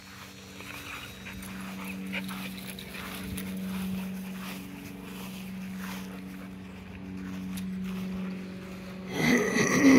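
A dog gives a short, loud whining yelp near the end that rises and then falls in pitch. A steady low hum runs underneath.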